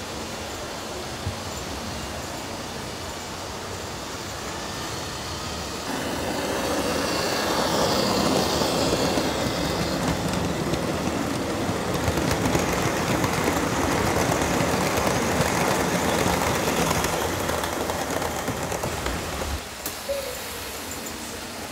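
Model train wheels running on the layout's track, a steady rolling rattle. It grows louder about six seconds in as a rake of hopper wagons passes close by, then drops back near the end.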